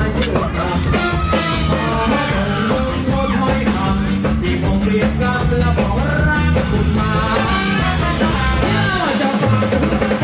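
Loud pop dance music with a steady beat and a singer's voice, played for a stage dance show.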